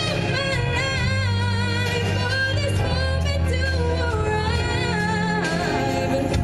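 A woman singing a pop song live into a handheld microphone over instrumental accompaniment, holding long, wavering notes above a steady bass line.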